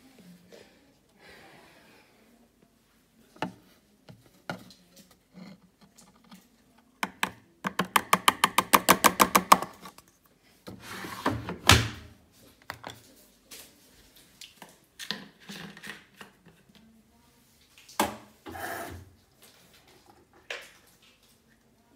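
Handling knocks and clunks around a front-loading washing machine's detergent drawer and detergent bottles, with a quick run of about twenty sharp clicks about a third of the way in and a few scattered thuds afterwards.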